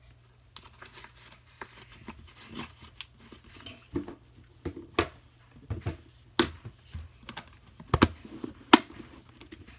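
Hands handling small items from a box of makeup: irregular clicks and light knocks with faint rustling, the sharpest four spread over the second half.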